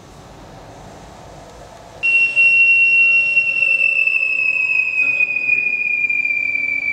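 A loud, high, steady tone that starts suddenly about two seconds in and slowly sinks in pitch, with fainter overtones above it.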